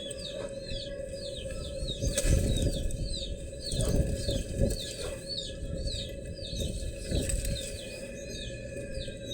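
Dry sand texture crumbling into water, heard as soft low crunches and thuds, loudest about two seconds in and again around four seconds in. Behind it runs a constant layer of high chirps repeating about three times a second.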